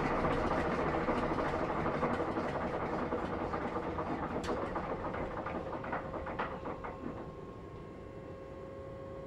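BB 67400 diesel locomotive's V16 diesel engine running down as it is shut off. The engine noise fades away over several seconds, with a few clicks and rattles around the middle. A steady high hum is left near the end.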